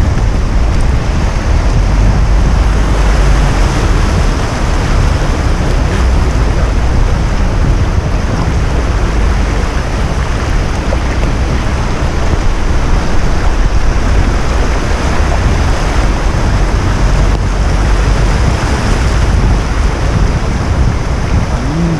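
Steady loud rush of water around a car in a heavy downpour on flooded streets, heard from inside the car.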